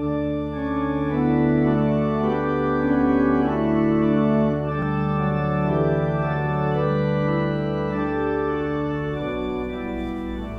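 Organ music: slow, sustained chords over a held bass note.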